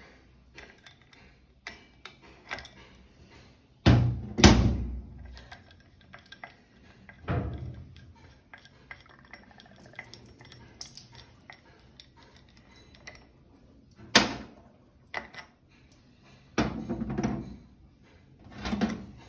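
Metal hand tools clinking and clattering while being handled, with a few louder knocks, the first about four seconds in and others scattered after.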